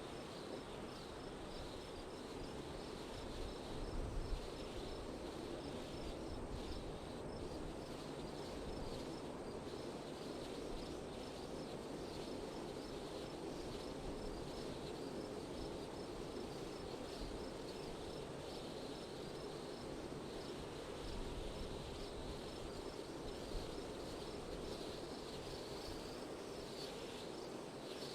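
Wind blowing steadily, with stronger low gusts about four seconds in and again around twenty-one seconds. Crickets chirp behind it in an even, high-pitched pulse.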